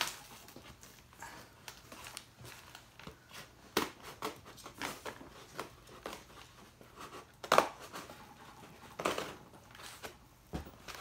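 A taped cardboard box being cut and pulled open by hand: irregular crinkling, scraping and sharp snips or tears of tape and card. The louder sharp sounds come about four, seven and a half and nine seconds in.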